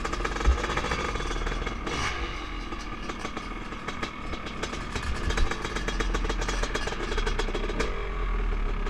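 Honda CR500's single-cylinder two-stroke engine running at low revs as the motorcycle rolls slowly, with a steady rapid firing rhythm and a few dull low thumps.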